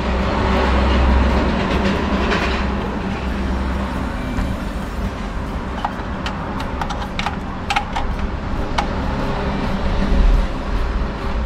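A steady low rumble throughout, with a few irregular metallic clicks and clinks of hand tools on the thermostat housing in the middle.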